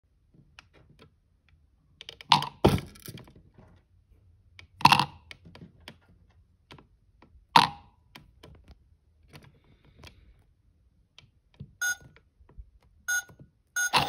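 Three sharp clacks about two and a half seconds apart as heart-shaped tealight candles are set into a toy washing machine's plastic drum, with light handling clicks between them. Near the end come two short electronic beeps from the toy's control-panel buttons.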